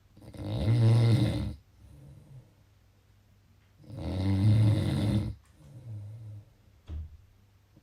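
Snoring: two loud snores about four seconds apart, each lasting over a second, and each followed by a fainter, shorter breath sound.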